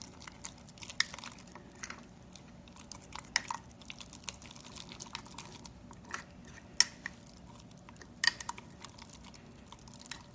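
A spoon stirring enzyme powder into thick, congealed oatmeal in a glass jar: soft wet squishing with irregular clicks and scrapes of the spoon against the glass, a few of them sharper.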